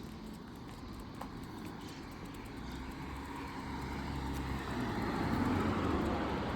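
Traffic noise of an approaching motor vehicle, a steady rumble that grows gradually louder, loudest about five seconds in.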